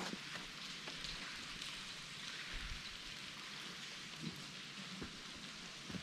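A steady, even hiss like rain falling on the forest floor, with a few faint ticks and a soft thump about four seconds in.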